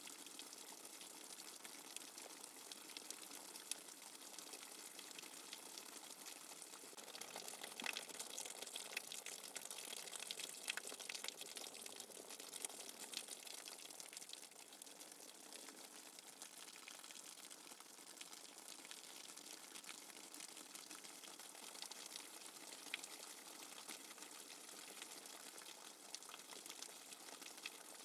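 Steady rain without thunder: an even hiss of falling rain with many small patters and drips, a little heavier for a few seconds near the middle.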